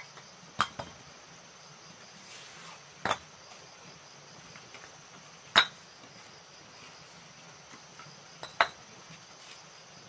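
Sharp knocks or taps, about six of them, singly and in pairs a few seconds apart, the loudest about halfway through, over a steady high insect chirring.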